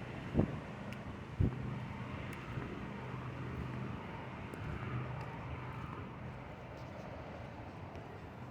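Outdoor urban background with a steady engine hum, broken by two dull thumps about half a second and a second and a half in.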